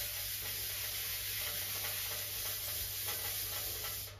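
Scotch-Brite abrasive pad rubbed by hand back and forth over the bare steel of a classic Mini front wing, a steady scratchy hiss that stops near the end. This is the final finishing pass over the repaired panel.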